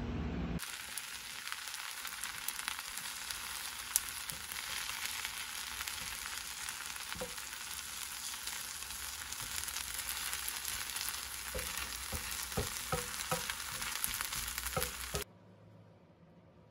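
Rice and an egg sizzling in a frying pan, a steady hiss with a few knocks of a wooden spatula against the pan in the second half; it starts about half a second in and cuts off suddenly near the end.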